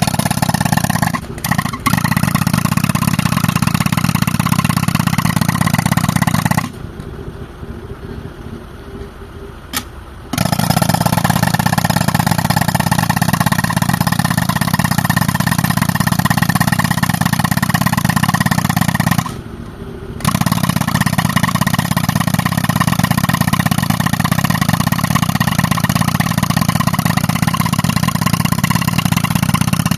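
Pneumatic rock breaker, fed by a tractor-driven air compressor, hammering on boulder rock. It stops twice, for about three and a half seconds and then for about a second, leaving only the tractor engine running.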